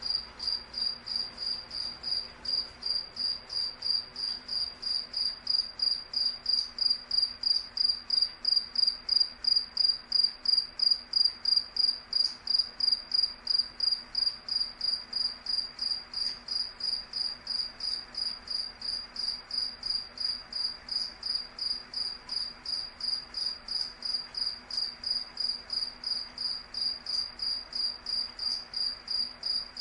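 A cricket chirping steadily, a regular run of clear high chirps at about three a second, slightly louder around the middle.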